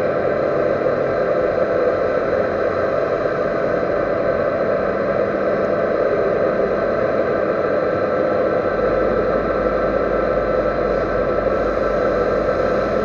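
Metal lathe running steadily, a continuous machine noise with several steady tones. A low hum joins about nine seconds in.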